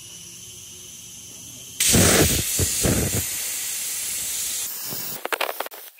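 Hypertherm 65-amp plasma cutter on an Arcdroid CNC arm striking its arc about two seconds in, a sudden loud hiss as the torch pierces and cuts half-inch steel plate, after a faint steady hiss. Near the end the hiss breaks into crackling.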